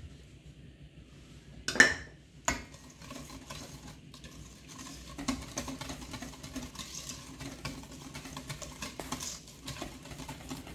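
Wire whisk beating wet pumpkin-bread batter in a stainless steel bowl: a steady, quick clatter of strokes scraping and clicking against the metal. Two sharp knocks come about two seconds in, before the whisking settles in.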